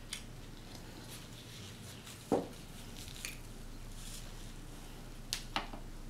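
A paper napkin rustling in a few short, crisp bursts as greasy fingers are wiped, with one sharper knock about two seconds in.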